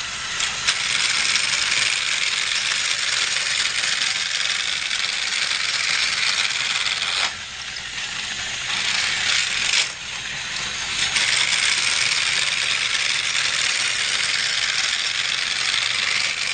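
Battery-powered Thomas TrackMaster toy engine running steadily along plastic track, with short dips about seven and ten seconds in.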